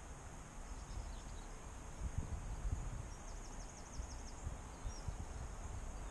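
Outdoor lakeside ambience: a low, uneven rumble with small birds chirping faintly over it, including a quick trill of about eight rapid chirps a little over three seconds in and a single chirp near five seconds.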